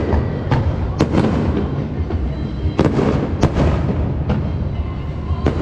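Fireworks show: shells bursting with about eight sharp bangs at uneven intervals, over a continuous low rumble.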